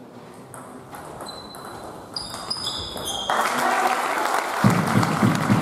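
Video intro sound: a fade-in of high, bright ping tones, then a louder noisy wash about three seconds in. Near the end a low pulsing beat comes in.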